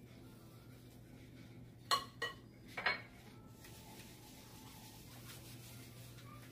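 Three quick metallic clinks of a stainless ice cream scoop against a glass mixing bowl of batter, about two to three seconds in, over a faint steady low hum.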